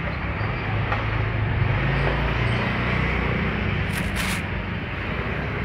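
Small motor-scooter engines running close by, a steady low engine hum over general street noise, with a brief high hiss about four seconds in.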